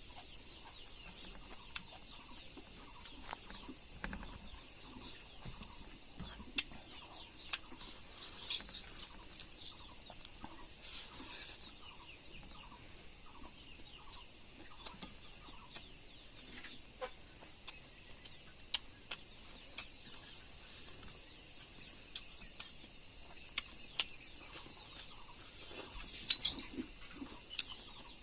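Chickens clucking over a steady high hiss, with scattered sharp clicks.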